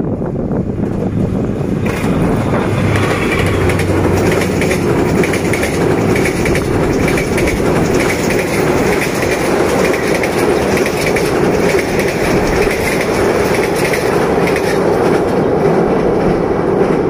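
Passenger train coaches rolling across a steel truss railway bridge: a steady loud rumble with the clickety-clack of wheels over rail joints, growing louder about two seconds in.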